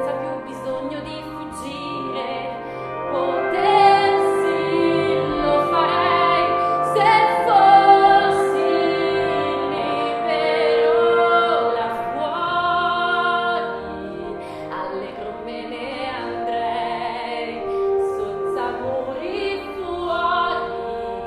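A woman singing a musical-theatre ballad in Italian in a full, operatic style, holding long notes that swell and glide, over a steady instrumental accompaniment.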